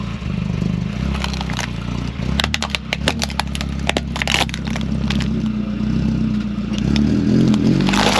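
Toy RC cars driving and crashing, with a steady low motor hum under a string of sharp clicks and clattering knocks from plastic bodies hitting and scraping. A louder scraping rush comes near the end.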